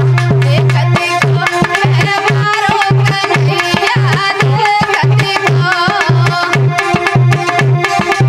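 Live Indian folk dance music: a hand drum keeps a steady, repeating beat under a melody line.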